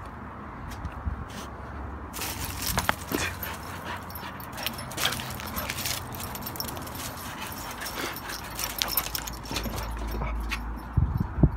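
A dog at play making small dog noises, with scuffling and rustling that starts about two seconds in.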